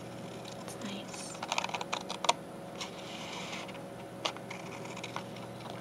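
Scissors cutting thick paper paint-sample cards: a quick cluster of crisp snips and clicks about a second and a half in, a short rasping cut around three seconds, then a single sharp click.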